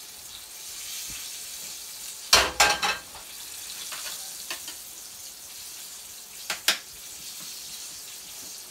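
Turkey chops frying in a nonstick pan with a steady sizzle. About two and a half seconds in, a quick run of metal clanks as an empty Blue Diamond nonstick pan is set down on the gas stove's cast grate, and two more clanks a few seconds later.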